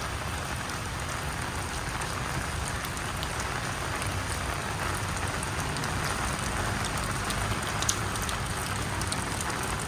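Torrential rain falling steadily, heard from under a handheld umbrella: a constant hiss with a few sharper drops ticking now and then.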